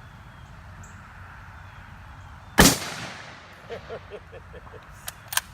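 A single shot from a Remington 700 bolt-action rifle chambered in .30-06, about two and a half seconds in: one loud crack with an echoing tail of about half a second. A few sharp clicks follow near the end.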